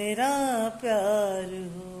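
A man singing unaccompanied, holding two long wavering notes, the second longer than the first.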